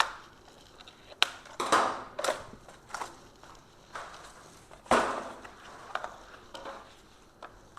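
Cardboard packaging being pulled open and crumpled by hand, in irregular crunches and rustles, with a few sharp clicks, the loudest about a second in and about five seconds in.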